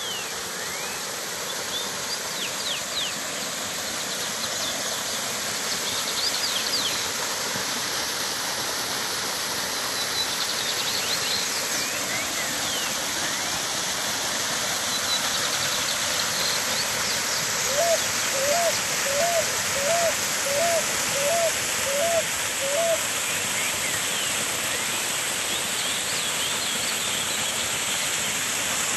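Small waterfall, water falling steadily through a rock cleft, with birds chirping high over it. From just past halfway, a bird gives a run of about eight short, evenly spaced lower calls, roughly two a second.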